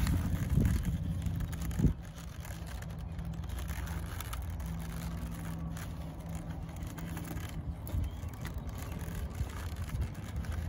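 A steady low outdoor rumble, with the soft handling of a stiff leather stirrup leather and its buckle and one sharp knock about two seconds in.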